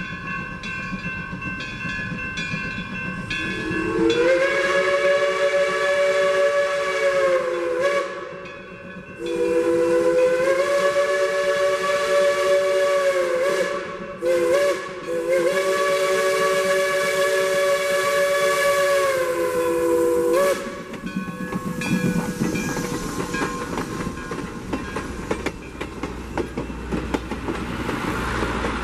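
Mt. Rainier Scenic Railroad steam locomotive sounding its multi-note chime whistle in the grade-crossing pattern: two long blasts, a short one, then a long one. Each blast slides up a little in pitch as it opens. A crossing signal bell dings steadily at first, and at the end the train rumbles and clatters past close by.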